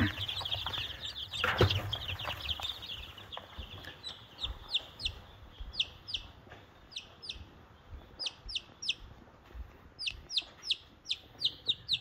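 Baby chicks peeping: at first a crowd of them together, with a couple of thumps as a hand reaches in among them. From about four seconds in, a single chick peeps loudly on its own. Each peep is a quick note that falls sharply in pitch, and they come in quick runs.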